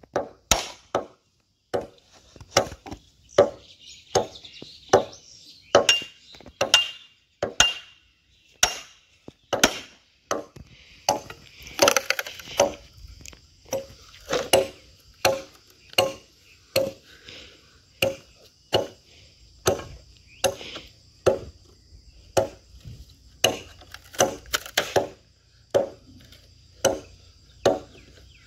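A long-handled blade chopping into green bamboo poles to split them: sharp strikes repeated a little more than once a second.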